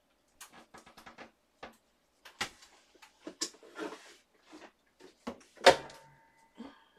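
Scattered knocks, clicks and clatter of someone rummaging through storage to fetch a ball of crochet thread, with one much louder knock about three-quarters of the way through.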